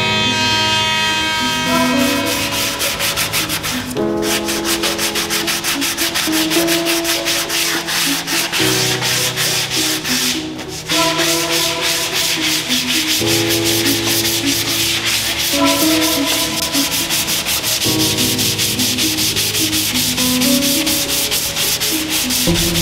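Sandpaper rubbed by hand along the edge of an oak tabletop in quick, regular back-and-forth strokes, starting about two seconds in. Background music with sustained chords plays underneath.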